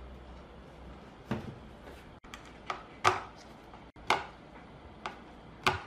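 Irregular handling knocks and sharp clacks, about six of them, the loudest about three seconds in and near the end, from a wooden speaker cabinet being turned over on a workbench and a screwdriver working the screws of its front baffle.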